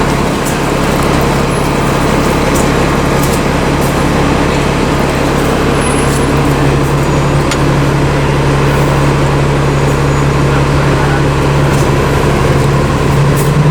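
Steady city street traffic noise with a constant low hum running under it.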